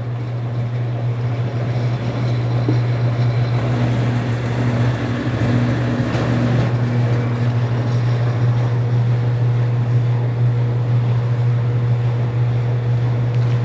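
Bluedog BWS-80 HD industrial wire stripping machine running with a steady low electric-motor hum while a heavy 500 MCM cable is fed through its blades to slit the insulation. The feeding adds a rougher, noisier layer over the hum from about two seconds in until around nine seconds.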